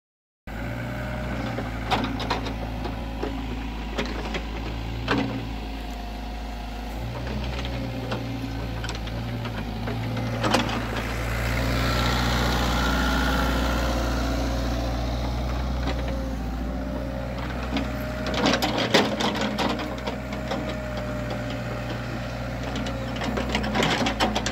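Kubota KX161-3α mini excavator's diesel engine running steadily, with occasional clanks and rattles. The engine gets louder for a few seconds about halfway through.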